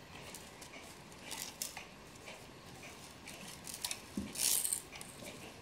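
Faint clicks and rustles of a small wooden cuckoo clock being handled and turned over by gloved hands, with one brief louder rustle about four and a half seconds in.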